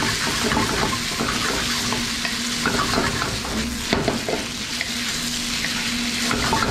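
Marinated chicken pieces sizzling hard in a hot wok while a spatula stirs and tosses them, with scattered clicks and scrapes of the spatula against the wok.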